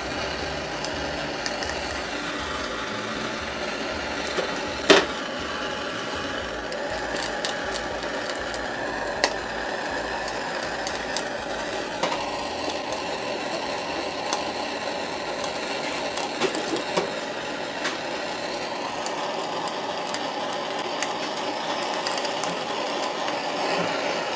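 Handheld propane blowtorch burning with a steady hiss while the egg and oil in the small pan under its flame crackle and pop. One sharp pop about five seconds in.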